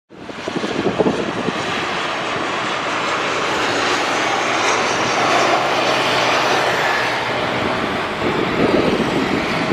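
A Boeing 737-900ER landing, its CFM56 turbofan engines giving a steady jet roar as it flares, touches down and rolls out. A lower, rougher rumble comes in about eight seconds in.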